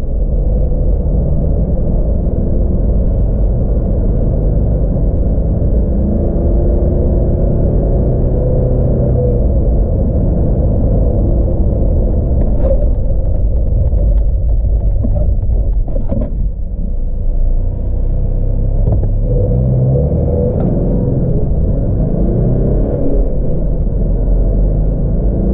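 Cabin sound of a 2018 Toyota LandCruiser Prado's 2.8-litre turbo-diesel four-cylinder under hard acceleration, a steady loud rumble with the engine note rising and dropping as it goes up through the gears. There is a brief break in the note about two-thirds of the way in.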